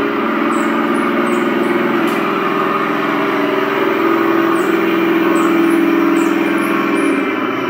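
Remote-control Leopard 2A4 model tank driving forward over a wooden floor: a steady low engine-like drone with several stacked tones, dropping away near the end.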